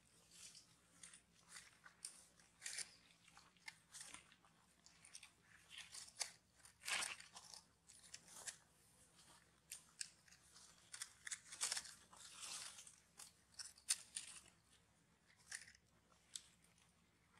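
Faint dry-leaf crackling and rustling in short, irregular crackles, as the monkeys handle and shift on the dry leaves.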